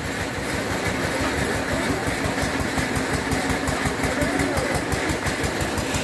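Generator engine running steadily with an even low throb.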